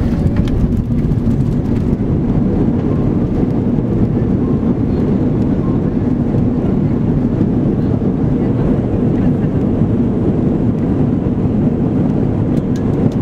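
Cabin noise of an Airbus A340-300 moving on the ground after landing: a steady, dense low rumble of the engines and wheels, with a brighter hiss on top that fades about two seconds in.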